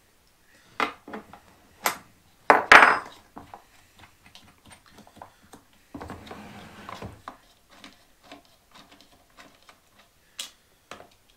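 Scattered clicks and clinks of a small metal wrench against the plastic housing of a Makita DUC306 cordless chainsaw as its side cover nut is undone by hand. There is a sharper clink about three seconds in and a short scrape around six seconds in.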